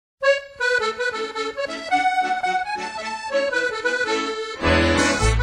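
Background music: a melodic tune, joined near the end by a heavy bass beat.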